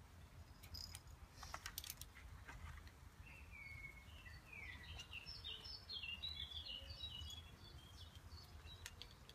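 A small songbird singing a run of quick, varied chirping notes for about five seconds, starting about three seconds in, over faint background hum, with a few light clicks and taps.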